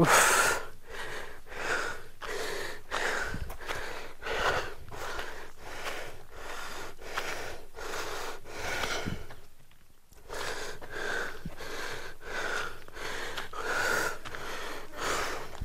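A man breathing hard and fast, out of breath from exertion, with quick regular breaths close to the microphone and a brief pause about ten seconds in.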